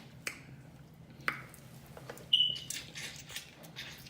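Seafood being worked by hand while eating, crab legs and shells included: a few sharp clicks, then about two seconds in a loud snap with a short high-pitched chirp, followed by a quick run of crackling.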